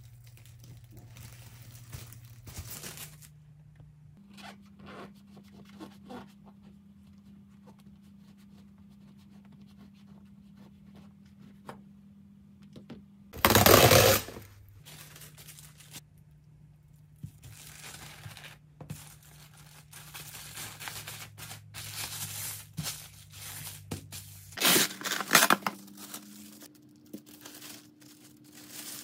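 Plastic cling wrap being pulled off its roll and torn off, with a loud rip about halfway through and another near the end, and soft crinkling of the film between as bagels are wrapped.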